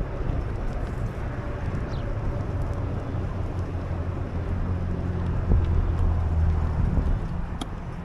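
Wind buffeting the microphone of a camera moving along a paved bike path, with a steady low hum of the ride underneath.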